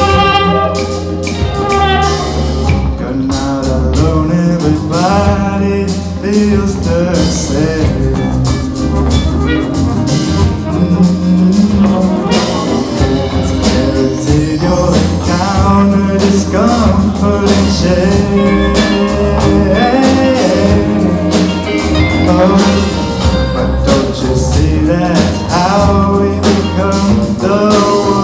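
Live band playing a song: drum kit keeping a steady beat under bass, guitars, piano and horns, with pitched lines sliding and bending over the top.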